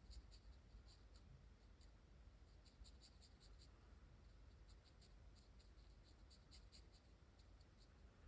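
Faint scratchy ticking of a brush-tip marker being stroked over watercolour paper, in short quick clusters a few seconds apart.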